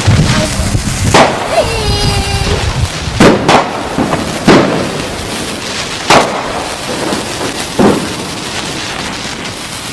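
Fireworks going off: about half a dozen sharp bangs at irregular intervals, over a steady hiss.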